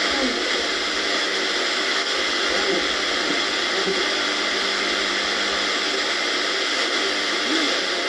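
Steady FM radio static hiss from a Samcon analog FM radio with a Sony CXA1619BS receiver, heard through its built-in speaker while it is tuned off a station, with faint fragments of a voice breaking through the noise.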